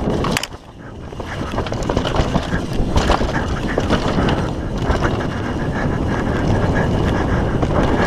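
A YT Tues downhill mountain bike ridden fast down a rough, loose dirt trail: wind buffeting the camera microphone over the constant rattle and clatter of the bike and tyres on the bumpy ground. The noise drops briefly about half a second in, then builds back up.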